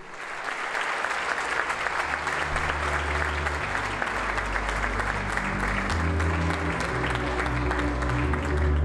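Audience applauding, a dense steady clatter of clapping, with low held music notes coming in about two seconds in and carrying on under it.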